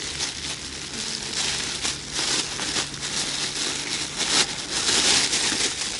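A thin plastic bag crinkling and rustling in irregular bursts as hands rummage through oilcake (zhmykh) bait inside it, louder in the second half.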